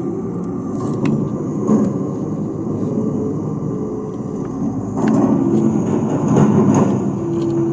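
Toy excavator and dump truck machinery running: a steady whirring with hums that shift in pitch and come and go, and a few sharp clicks.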